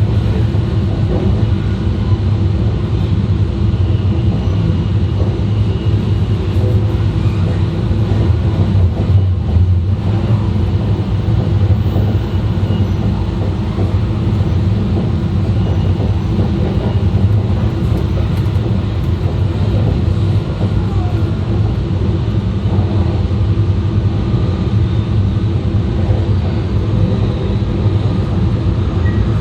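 E2 series Shinkansen running at speed, heard from inside the car's vestibule: a steady, loud rumble of wheels on the rails and the running gear, with a brief lull in the higher noise about nine seconds in.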